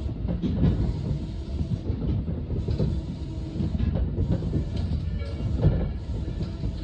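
Electric commuter train running along the track, heard from inside the car: a steady low rumble of wheels and running gear.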